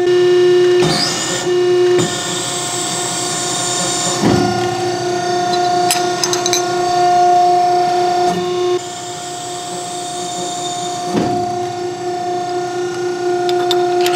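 Press brake running with a steady mechanical hum. A hiss comes in twice, each time stopping abruptly, with a few light clicks between.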